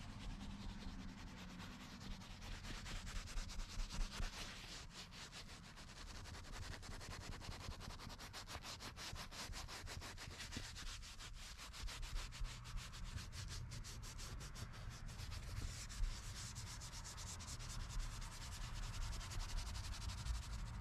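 Soft-bristled detailing brush scrubbing a perforated leather car seat wetted with leather cleaner: a faint, steady swishing rub made of rapid back-and-forth strokes.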